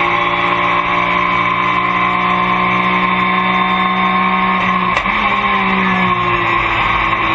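Porsche race car engine heard from inside the cockpit, running at high, steady revs. About five seconds in there is a sharp click and a jump in pitch at a gear change, and then the revs fall away as the car slows.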